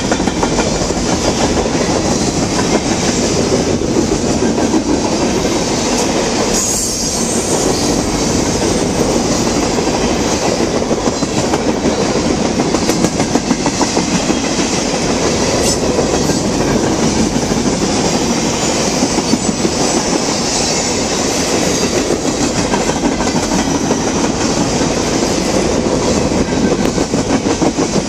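Freight train of flatcars loaded with steel trash containers rolling past close by: a steady, loud rumble and clatter of steel wheels on the rails.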